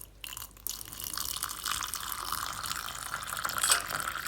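Boiling water being poured from a kettle into a cup, a steady splashing stream starting about a second in after a few light clicks.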